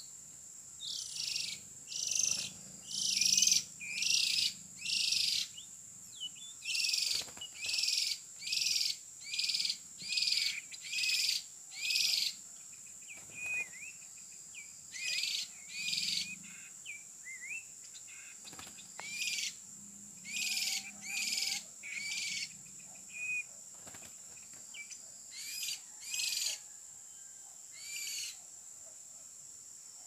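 Oriental magpie-robin (kacer) giving short, harsh calls over and over, about one a second, in runs with brief pauses between them. A steady high insect drone runs underneath.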